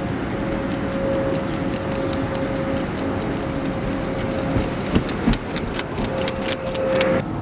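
Steady vehicle running noise with a held whine, scattered clicks and a few louder knocks about five seconds in.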